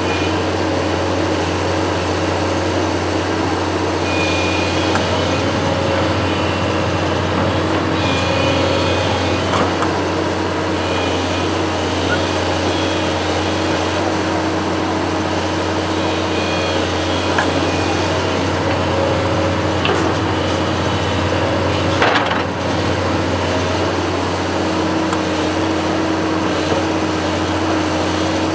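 A construction machine's engine running steadily, with scattered clicks and clanks and one sharper knock about 22 seconds in.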